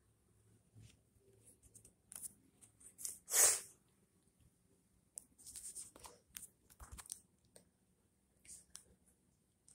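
Scattered short rustles and scrapes of handling against bedding, the loudest a brief scrape about three and a half seconds in, with a cluster of softer ones later.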